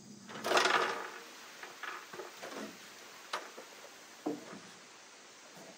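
Wooden siding boards being handled: a short loud scrape about half a second in, then several scattered knocks and clicks of wood on wood.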